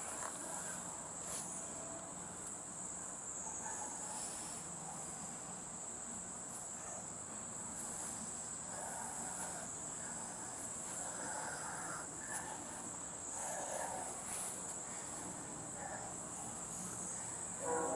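Steady high-pitched drone of insects trilling.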